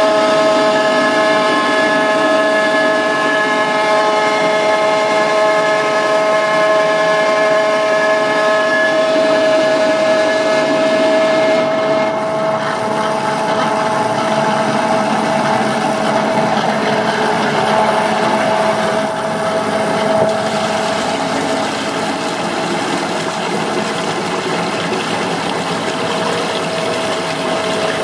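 A Hollander beater running, its motor and bladed roll churning jute and flax pulp around the tub: a loud, steady hum with a strong held tone over a rushing, slushy noise. About twelve seconds in, the sound turns rougher and noisier as the higher tones drop away.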